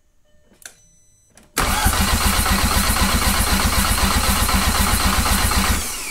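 Car engine turned over by its starter motor for about four seconds. The cranking starts suddenly about a second and a half in, with steady even pulses, and ends with the starter winding down in a falling whine. The engine cranks without firing because no fuel is reaching it.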